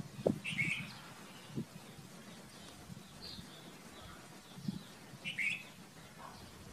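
Red-vented bulbul giving short chirping calls: two clearer chirps, about half a second in and near the end, with fainter chirps between. A few soft low thumps are mixed in.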